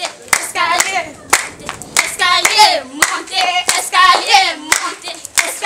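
A voice singing with hand claps keeping the beat throughout.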